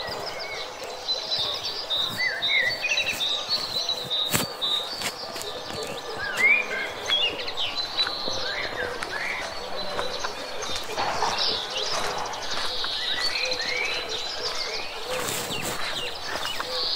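Birds chirping and singing, many short rising and falling calls and trills overlapping, with scattered sharp clicks.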